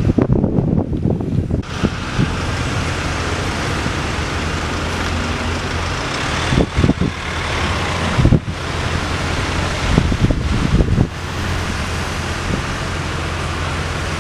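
Fire engine running steadily with a low, even drone while it drives its water pump through hoses coupled at the rear. Road traffic passes, and wind buffets the microphone in gusts.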